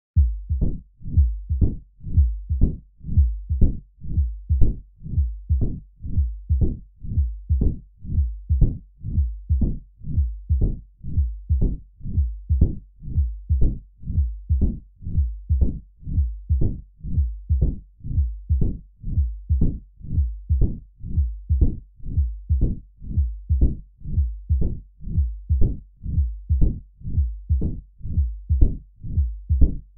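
Heart sounds of mitral stenosis: regular low-pitched beats of S1 and S2 with an opening snap and a low diastolic rumbling murmur.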